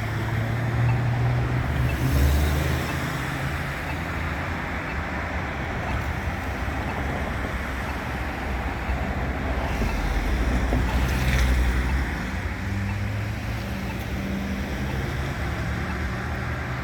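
Road traffic: vehicle engines humming and cars passing, a steady noise with a couple of louder swells as vehicles go by.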